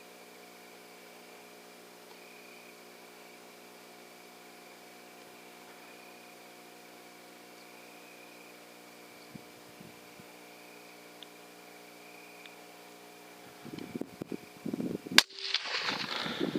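A faint steady electronic hum, then some handling noise and, about a second and a half before the end, a single loud gunshot with its echo trailing after it.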